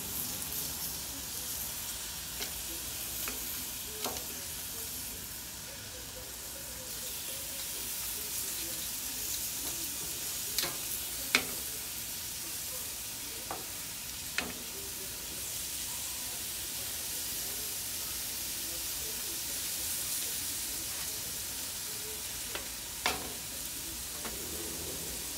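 Marinated chicken and skewered meat sizzling on a hot barbecue grill, a steady hiss. Sharp metallic clicks of tongs against the grill come several times, two close together about eleven seconds in.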